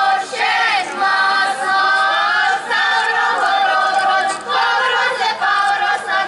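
A folk choir of women's and children's voices singing together in long held phrases, with brief breaks between them.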